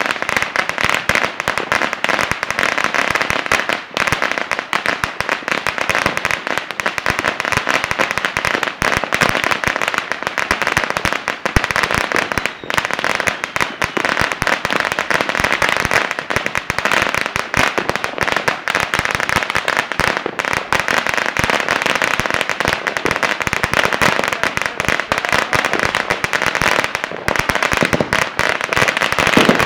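Many firecrackers going off at once in a dense, unbroken rapid crackle of sharp pops.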